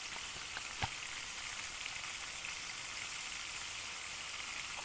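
Food sizzling steadily in a frying pan, with one small click about a second in.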